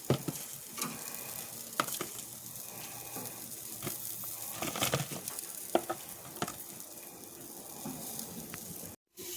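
Meat sizzling on a charcoal grill: a steady hiss with scattered pops and crackles.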